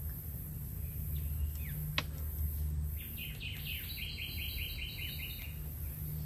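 Small birds chirping, with a fast trill of evenly repeated notes lasting about two and a half seconds from around three seconds in. A single sharp click about two seconds in.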